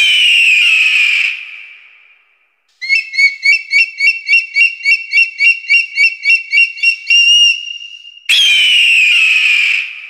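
Eagle calls: a loud, high scream that falls in pitch and fades slowly, then a rapid series of high piping chirps, about four a second, ending on a held note, then another falling scream about eight seconds in.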